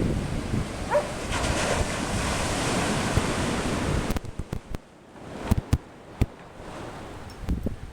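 Strong wind buffeting the microphone, a loud rushing noise that drops away suddenly about four seconds in. After that come intermittent low gusty thumps on the mic.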